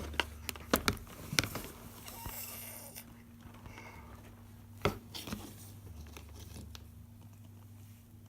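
Scattered sharp clicks and taps, several in the first second and a half and one more about five seconds in, with a brief rustle around two seconds, as a child eats crunchy cereal.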